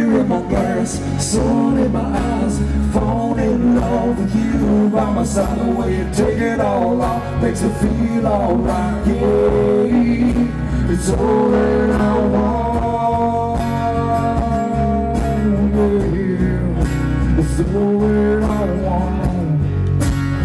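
Live country band playing an amplified song: acoustic guitar, electric bass, banjo and drums, with a male singer.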